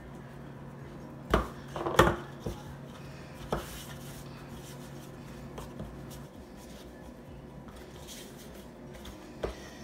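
Hands kneading dumpling dough in a plastic mixing bowl on a countertop, quiet rubbing and handling, with a few sharp knocks about one and a half and two seconds in and smaller ones shortly after.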